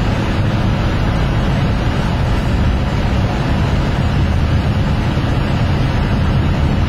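Car driving along a narrow mountain road, heard from inside the cabin: steady engine and tyre noise.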